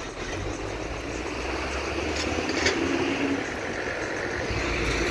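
Car on the move: steady engine and road noise with a low rumble that grows a little louder toward the end.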